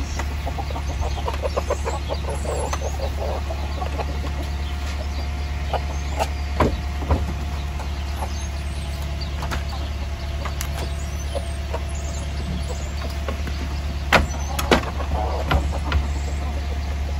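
Chickens clucking now and then over a steady low hum, with a few sharp knocks, heaviest near the end.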